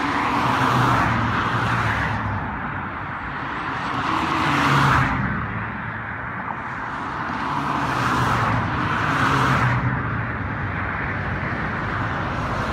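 Road traffic: several cars passing close by one after another, each swelling and fading.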